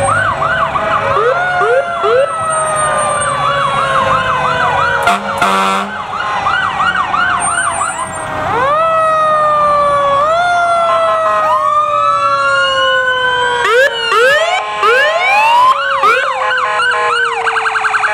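Several fire truck sirens sounding at once as the trucks pass: fast electronic yelps and wails over a mechanical siren that winds down in one long falling tone and is boosted back up a few times.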